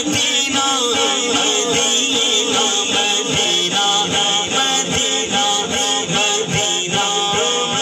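Man reciting a naat, an Urdu devotional poem in praise of the Prophet, singing solo into a microphone with long, gliding held notes. A steady beat of about three strokes a second runs under the voice.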